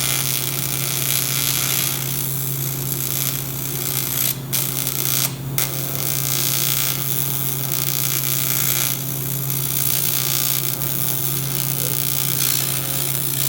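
MIG welder arc running on aluminum: a steady crackling hiss over the welding machine's hum, breaking off twice for an instant around four and a half and five and a half seconds in.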